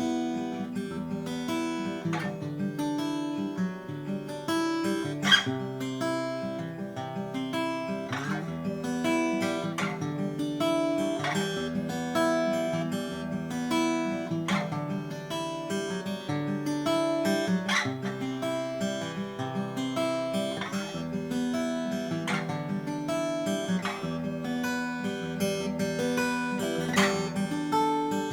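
A 1919 Martin 0-18 acoustic guitar played solo, with plucked chords and melody notes over a bass line that moves every second or two.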